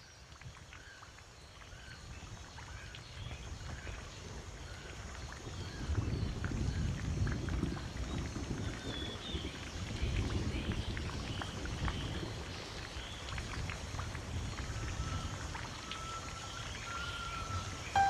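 A herd of horses galloping, a low rumble of hoofbeats that grows louder, strongest in the middle and then easing, with birds chirping throughout.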